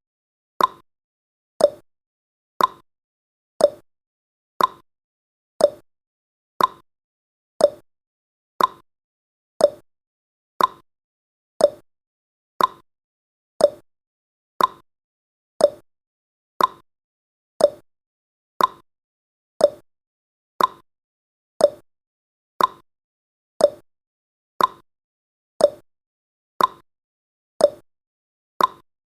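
Countdown timer's ticking sound effect: one short, sharp, clock-like tick every second, each fading away quickly.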